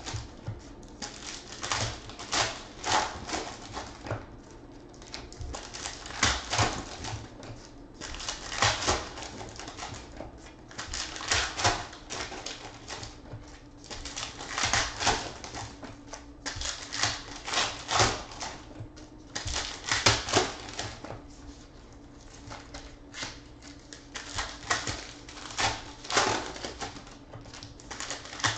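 Foil trading-card pack wrappers being crinkled and torn open by hand, in repeated sharp rustling bursts every second or two.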